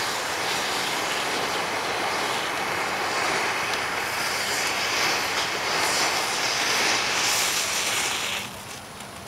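Homemade rocket candy burning on an Xbox 360 motherboard with a loud, steady rushing hiss, which cuts off sharply about eight seconds in as the charge burns out.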